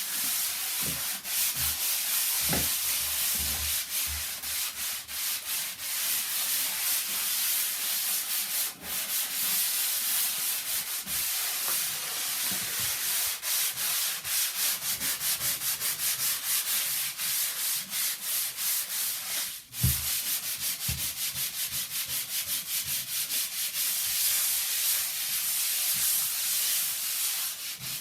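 Sandpaper rubbed by hand over a surface in fast back-and-forth strokes, a steady scratchy hiss, with a brief break about twenty seconds in.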